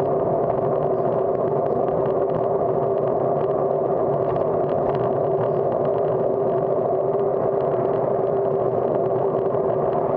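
Steady wind and road noise picked up by a camera on a moving bicycle, with a constant low hum running under it.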